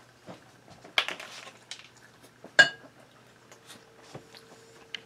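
A few clinks and knocks of kitchen dishes and utensils being handled, the sharpest and loudest about two and a half seconds in with a short ring, with a faint steady hum coming in about halfway through.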